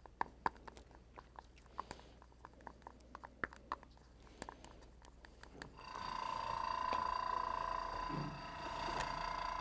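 Light, irregular clinks of a stirrer against a small glass bowl as paint is mixed with flow aid. About six seconds in, a small motor starts and runs steadily with a whine, like an airbrush compressor.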